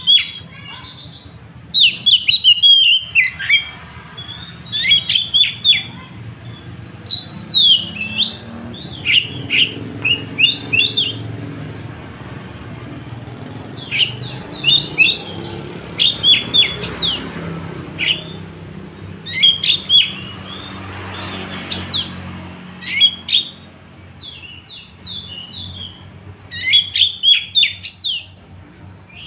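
Oriental magpie-robin (kacer) singing its loud 'tembakan' song: short bursts of a few quick whistled notes sweeping up and down, repeated every second or two with brief pauses. This rapid volley song is what kacer keepers prize for intimidating rival birds.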